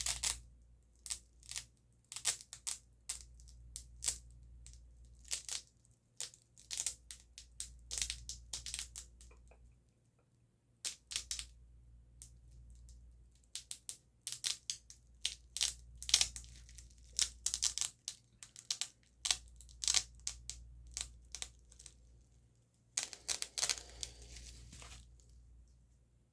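Sharp clicks and ticks from a pen, in quick irregular runs, with a short pause about ten seconds in and a denser, rustling stretch near the end.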